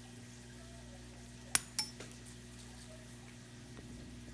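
Two sharp metallic clinks about a second and a half in, a quarter second apart, the first much louder: small metal parts of a military medal knocking together or dropping onto the table, against a faint steady hum.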